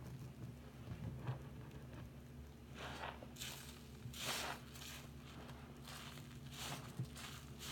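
A soapy sponge being squeezed and kneaded by hand in a sink of foamy water. After quieter sloshing at first, it gives a run of about six wet squishes from about three seconds in, over a faint steady hum.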